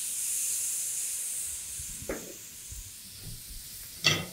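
Brandy poured onto grilled lobsters in a hot pan: a loud hiss of sizzling and steam that fades over about two seconds. Near the end, one sharp clunk as the heavy pan is taken by its handles on the burner.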